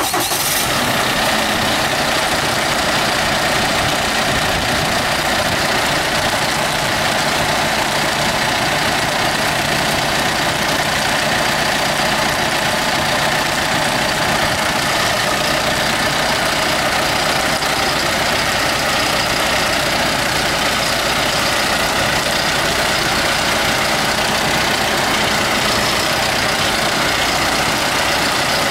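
2019 John Deere 5125ML tractor's diesel engine idling steadily.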